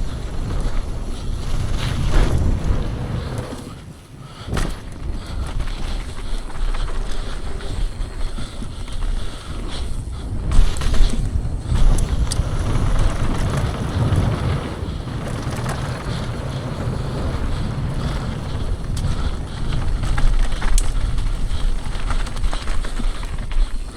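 Downhill mountain bike at speed on a dirt trail: tyres and bike rattling over rough ground, wind buffeting the microphone, with several sharp knocks from hits and landings and brief lulls about four and eleven seconds in.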